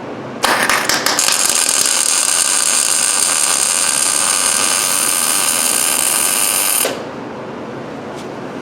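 Welding arc running steadily for about six seconds as a nut is welded onto a broken exhaust manifold stud in a cast iron cylinder head; it starts suddenly and cuts off suddenly.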